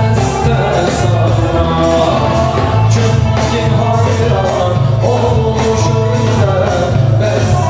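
A song: a male voice singing over instrumental backing with a sustained bass and a steady beat.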